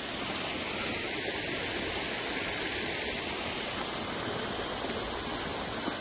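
Steady rushing of running water, a stream flowing down through landslide mud and debris.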